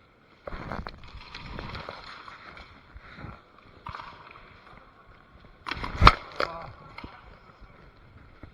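Rustling and scraping noise against the microphone, with scattered small clicks and one sharp knock about six seconds in, the loudest sound.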